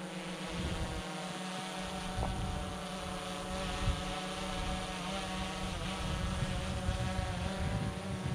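DJI Mavic 2 Pro quadcopter's propellers and motors whining steadily in several stacked pitches as it descends to land, the pitch wavering a little midway through the descent. Gusts of wind buffet the microphone underneath.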